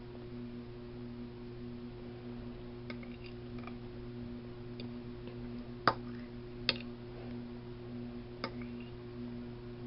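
Eating sounds: a few short sharp clicks and taps, three of them louder, about six, seven and eight and a half seconds in, over a steady low hum.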